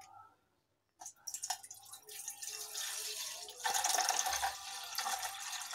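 Soda water poured from a bottle into a stainless steel pot, a splashing stream that starts about two seconds in and grows louder shortly before the four-second mark.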